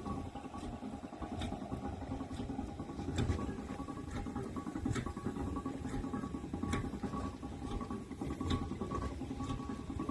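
Steam ploughing engine working: a low rumble with a sharp, regular tick a little faster than once a second.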